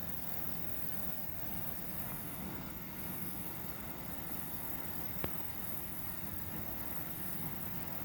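Insects trilling in high-pitched pulses, roughly one a second, over a steady low background rumble, with a single sharp click about five seconds in.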